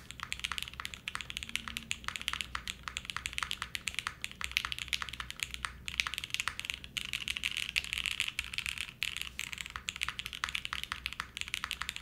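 Typing on a Mode Envoy 65% mechanical keyboard with lubed Gateron Pro Speed Silver linear switches, a carbon fiber plate, mid-plate foam and PBT keycaps: a dense, fast run of keystrokes with a couple of short breaks about halfway.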